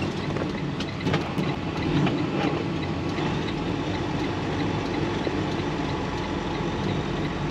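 A Western Star semi truck's diesel engine running, heard from inside the cab as the truck pulls away through a turn, with a few light clicks and knocks in the first couple of seconds.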